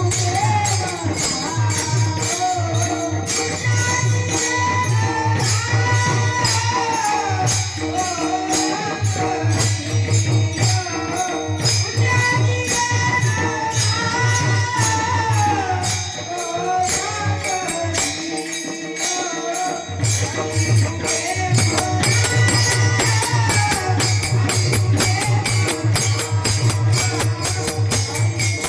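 Warkari devotional bhajan: a voice singing a wavering melody over fast, even strokes of small jingling hand cymbals and a low drum. The drum drops out for a few seconds a little past halfway, then comes back.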